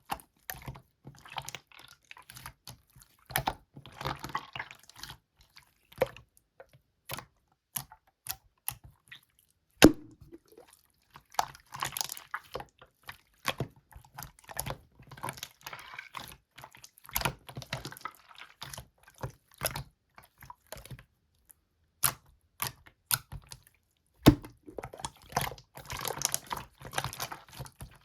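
Hands squishing and stretching slime: irregular sticky clicks, squelches and small air pops, coming in uneven bursts with short gaps.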